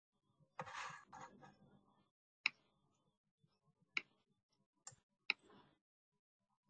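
Computer mouse clicking: four sharp single clicks over about three seconds, after a brief soft rustle about half a second in, with near silence between.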